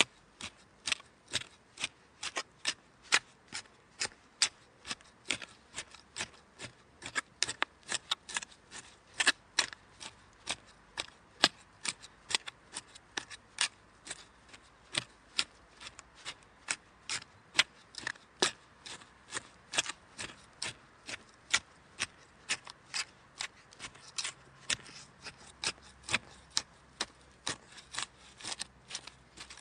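Garden hoe chopping into soil, a continuous uneven run of short, crisp strikes about two to three a second.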